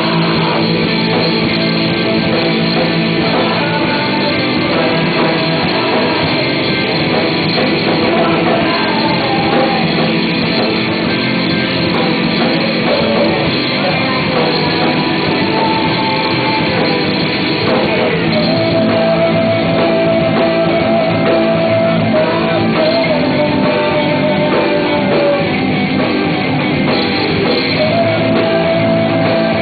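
Live rock band playing loud, with guitars and a steady full sound; long held notes come in past the middle and again near the end.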